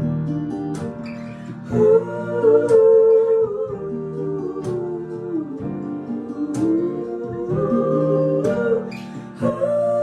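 Acoustic guitar and piano playing a slow song together, with a sung vocal melody over them and sharp accents about every two seconds.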